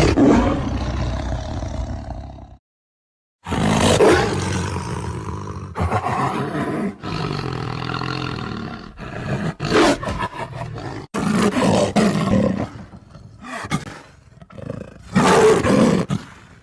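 Tiger roaring: a roar of about two and a half seconds, a short silence, then a long run of roars of varying length with brief breaks between them, and a loud roar near the end.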